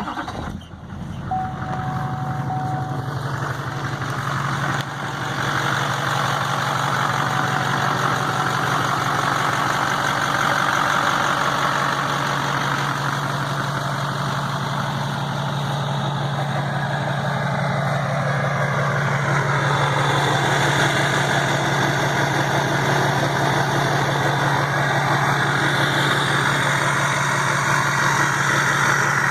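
2006 GMC LBZ Duramax 6.6-litre V8 turbo-diesel idling steadily, fitted with a new S&B cold air intake. A thin steady tone sounds for about two seconds, starting about a second in.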